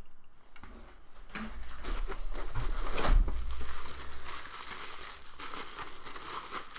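Clear plastic packaging crinkling and rustling as small 3D-printer parts are unwrapped by hand, loudest about halfway through.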